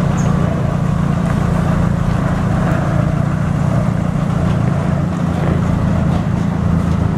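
Dump truck diesel engines running at low speed as the trucks manoeuvre past, a steady, loud, low drone with no clear revving or shifting.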